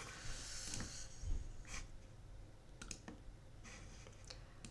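Computer mouse clicking: several faint, separate clicks, a couple of them in quick succession.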